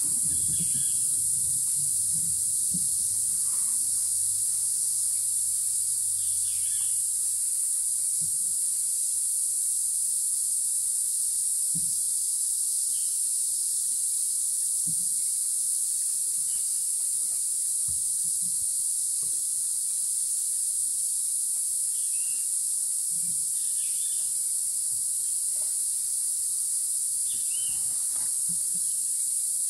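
A steady, high-pitched chorus of tropical insects droning without a break. Scattered faint short calls and a few soft low knocks come through underneath.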